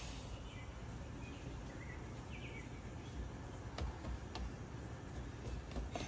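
Steady outdoor background noise with a low rumble, a few faint high chirps about two seconds in, and some light clicks later on.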